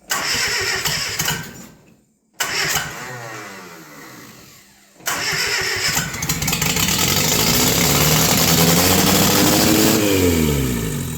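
1957 Bedford CA's freshly rebuilt four-cylinder petrol engine firing in three goes. Two short bursts die away. Then it catches and races, rising in pitch, and winds down near the end as the ignition is switched off. Too much fuel is getting through, with the carburettor either flooding or its throttle not set right.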